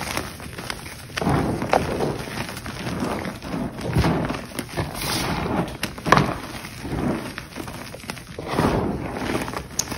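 Blocks of chalk crunching and crumbling as they are crushed, in a run of separate crunches about one a second, some sharper and louder than others.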